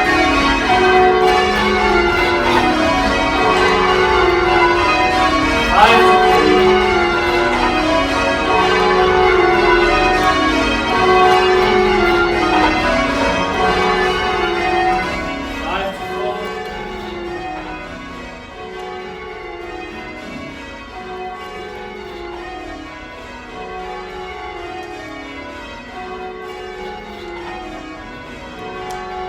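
Cathedral church bells being change rung, struck one after another in repeating descending sequences. Loud at first, then quieter from about two-thirds of the way through.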